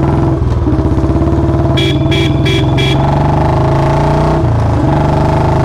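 Royal Enfield Bullet 350's single-cylinder engine running loud and hard under way through a C-bend pipe and free-flow Long Punjab silencer. A vehicle horn beeps four times quickly about two seconds in, and the engine note drops briefly about four and a half seconds in before picking up again.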